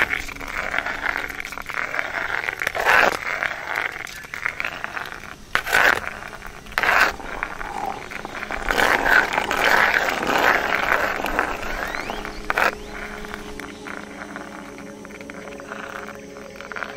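Abstract experimental soundtrack: grainy, scraping, crackling noise with steady low drone tones underneath, swelling suddenly several times.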